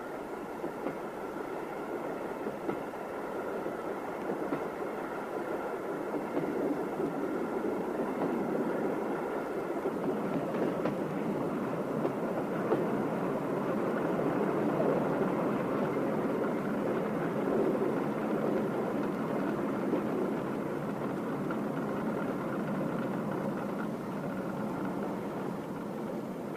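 Train running along the rails, a steady rumble that grows somewhat louder about ten seconds in and eases off near the end.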